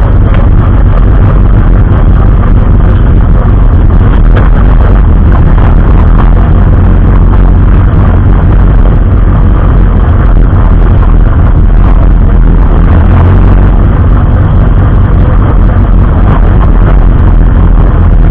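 Race vehicle's engine running loud and steady under way, heard through an onboard camera microphone, the level close to distortion.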